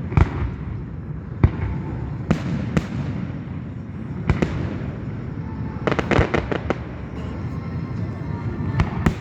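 Aerial fireworks shells bursting: a series of sharp booms a second or so apart, with a quick string of rapid pops about six seconds in, over a steady low rumble.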